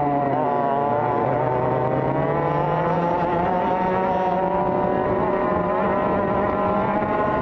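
TKM two-stroke kart engine heard close up from an onboard camera. Its note drops about a second in as the kart slows into a corner, then climbs steadily as the kart accelerates out.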